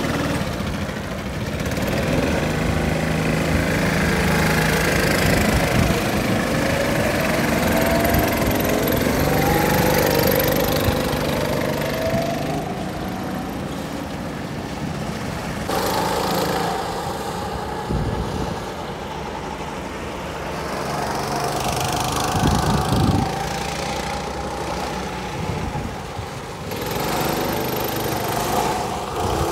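Several go-kart engines running together as the karts pull away and drive the track, their pitch rising and falling as they speed up and slow for corners.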